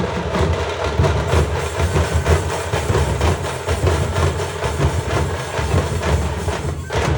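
Music with fast, heavy drumming.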